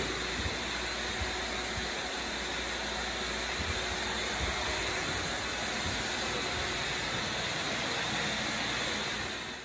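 Shop vacuum running steadily: a continuous rushing hiss with a high motor whine, cutting off suddenly at the end.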